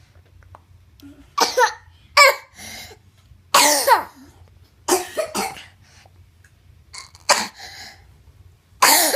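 A person coughing repeatedly, in about six separate bouts spaced a second or so apart, some coughs carrying a voiced tone that falls in pitch.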